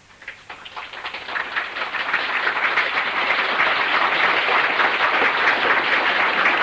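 An audience applauding: the clapping builds over the first couple of seconds and then holds steady.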